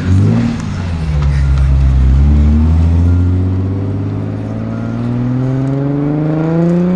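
Mk4 Toyota Supra's straight-six engine revved once, then pulling away, its note climbing steadily as the car accelerates.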